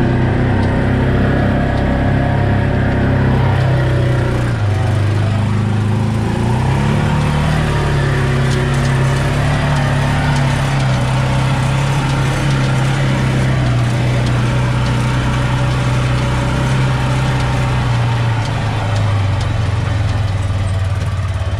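Side-by-side UTV engine running steadily while climbing a muddy dirt road, heard from inside the cab. The engine note steps down and up a few times with the throttle, dropping again near the end.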